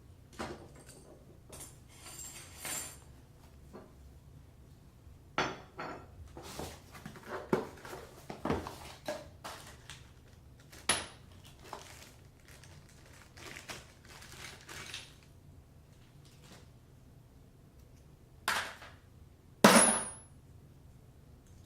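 Faucet parts being handled and set down: irregular clinks, clatters and rustles, with two louder knocks near the end, the last ringing briefly.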